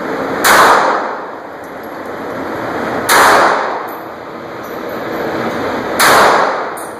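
Three handgun shots from a semi-automatic pistol, about three seconds apart, each a sharp crack that rings on for about a second in the steel-walled indoor range.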